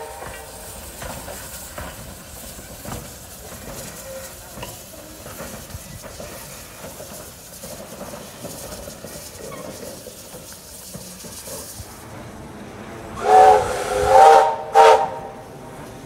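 Steady hiss of steam from a standing steam locomotive, which stops abruptly after about twelve seconds. Then a steam locomotive whistle sounds three short blasts in quick succession, the last one the shortest.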